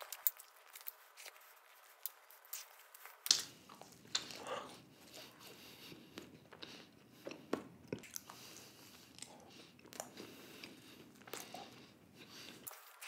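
A man chewing a mouthful of pizza close to the microphone: quiet wet mouth clicks and smacks, with a sharper click about three seconds in.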